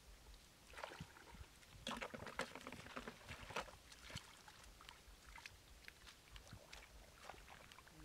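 Hands rummaging through shallow water and water weeds, picking up snails: faint, irregular small splashes and rustles, busiest about two to three and a half seconds in.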